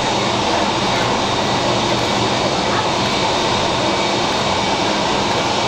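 Jet engines of a Boeing 757-300 running at taxi power: a steady rushing noise with a whine held on several even tones.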